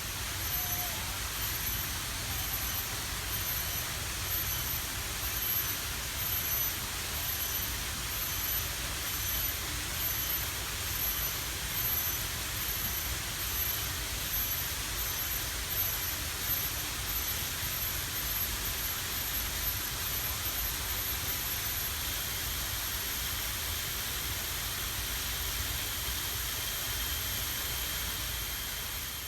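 Steady rushing noise with a low rumble, over high-pitched insect calls. The top insect note pulses a little more than once a second for most of the stretch, then holds steady near the end.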